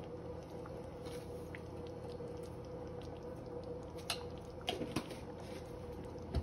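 Thick chicken curry simmering in a pan, giving soft wet bubbling and popping over a steady low hum. A few light clicks come in the second half.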